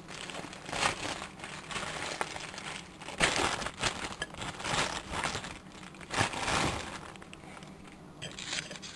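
Plastic tortilla bag crinkling and rustling in irregular bursts as tortillas are taken out of it.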